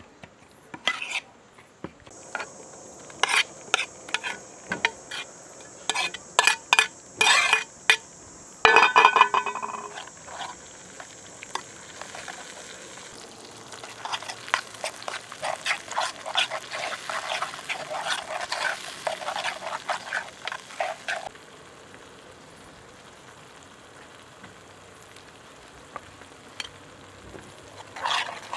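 A metal spoon scraping and clinking against a metal plate while mixing a mash of roasted tomatoes and peppers, with a ringing metal clang about nine seconds in. Later, a spoon stirs and scrapes through tomato sauce in a hot, sizzling pan for several seconds.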